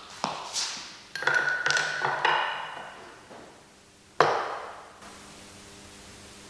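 High-heeled footsteps on a hard stage floor, sharp knocks ringing in a reverberant hall, then one louder knock about four seconds in as an object is set down on a wooden stool.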